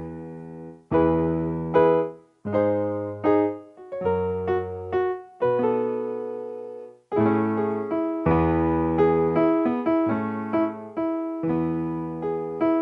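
Background music: slow solo piano chords, each struck and left to fade, with short pauses between phrases.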